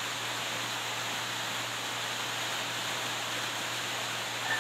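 Steady hiss with a low hum underneath; no distinct sound stands out.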